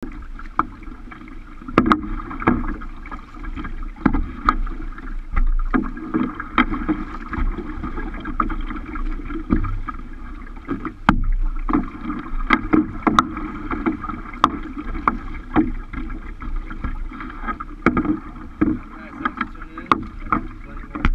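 Plastic kayak moving through choppy water: water splashing and lapping steadily against the hull, with frequent irregular sharp slaps and knocks.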